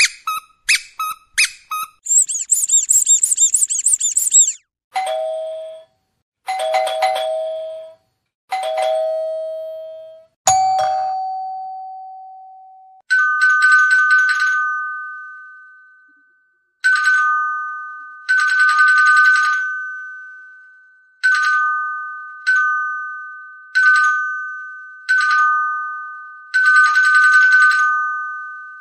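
Rapid high-pitched squeaking for the first few seconds, then a doorbell chiming ding-dong over and over: a lower two-note chime three times, and from about 13 s a higher electronic two-note chime with a rattling buzz under each note, rung about eight times.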